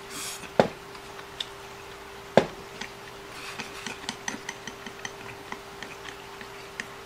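Chopsticks knocking against a ceramic rice bowl as rice is scooped up: two sharp knocks in the first few seconds, then a run of light ticks, over a faint steady hum.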